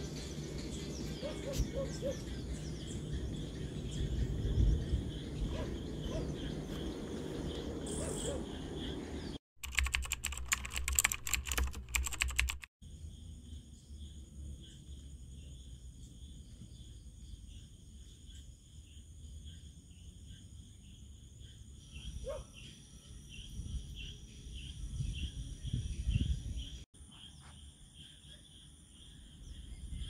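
Open-air hilltop ambience: wind rumbling in gusts on the microphone, birds chirping, and a steady high insect buzz. About ten seconds in comes a burst of rapid clicking lasting about three seconds.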